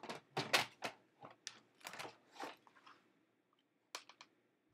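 A sheet of textured white cardstock being handled on a cutting mat: a faint run of crisp crackling and light taps for about two and a half seconds. After a short pause, a couple of clicks follow near the end.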